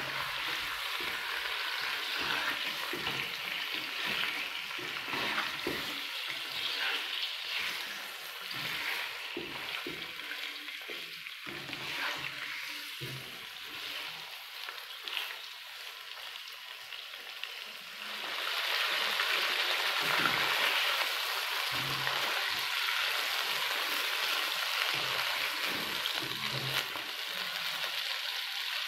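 Mutton pieces sizzling in hot oil in a nonstick wok, stirred and turned with a slotted spatula that scrapes and knocks against the pan. The sizzling grows louder about two-thirds of the way through as the meat sears and browns.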